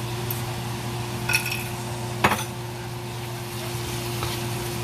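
Egg sizzling in oil in a hot pan as it is scrambled, with a utensil scraping and clinking against the pan, two sharp knocks standing out in the first half. A steady low hum runs underneath.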